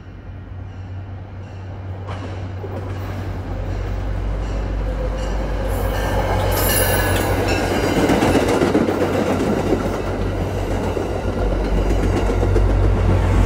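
MBTA commuter rail train rolling into the station: the rumble of wheels on rail builds steadily as the cab car and coaches pass, with a brief high squeal about six seconds in. A steady low diesel drone runs underneath and swells near the end as the locomotive pushing at the rear approaches.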